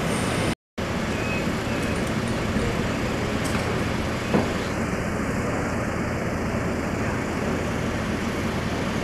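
Truck diesel engine running steadily, as on a truck-mounted crane at work, with a short dropout just after the start and a light knock about four and a half seconds in.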